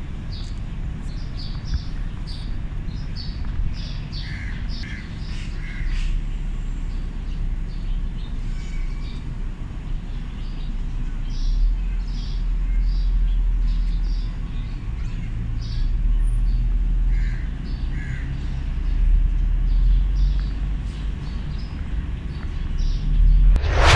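Birds calling: short high chirps repeating in quick runs, with a few lower calls in pairs, over a steady low rumble. A sharp knock comes right at the end.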